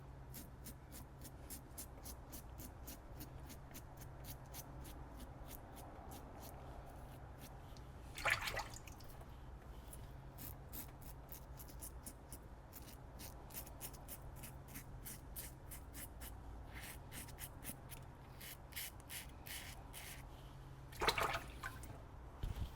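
Safety razor with a Kai blade scraping stubble through shaving lather: quick, short, crisp strokes at a few per second, in runs with brief pauses. Twice, about eight seconds in and near the end, a louder burst of water.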